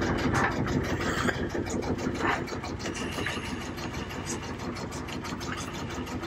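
Domestic cat purring close up: a steady, rapid low pulsing, with a few brief rustles as it kneads the fabric with its paws.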